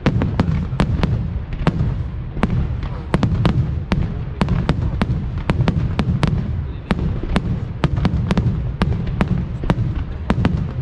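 Fireworks display going off: a rapid, irregular run of sharp cracks, several a second, over a continuous low rumble of bursts.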